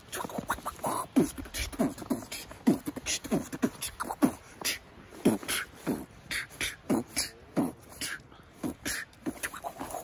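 A person beatboxing: a rapid, uneven string of mouth clicks and short vocal sounds that drop in pitch, two or three a second.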